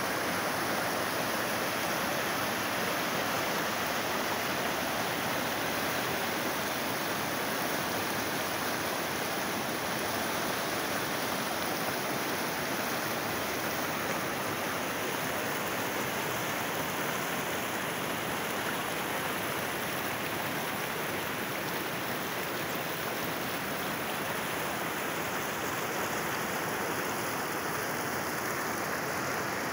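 Flood-swollen river rushing over rocks and rapids: a steady, unbroken rush of muddy floodwater.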